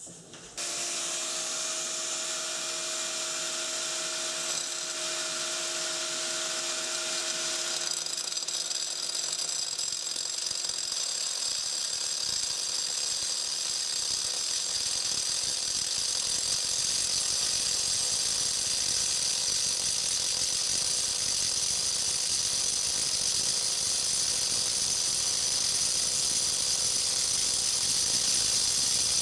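A 4-inch angle grinder dry-cutting into a granite countertop slab, with a vacuum sucking up the dust at the blade. A steady machine noise starts about half a second in, and a layer of high whine joins about eight seconds in.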